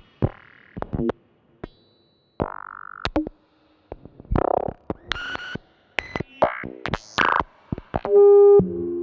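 Modular synthesizer patch: a Doepfer A-188-9 high speed VCO clocking an A-188-1 BBD module, giving a string of short, glitchy pitched notes and clicks at irregular intervals. About eight seconds in, a loud held tone comes in and then steps down to lower notes.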